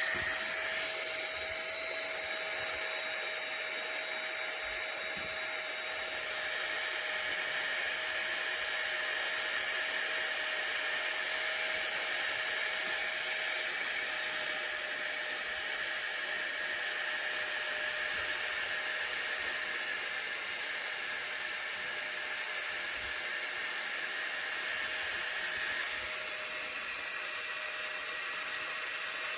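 FLEXTAILGEAR Tiny Pump 2 mini electric air pump running steadily, a small fast motor and fan with a high-pitched whine.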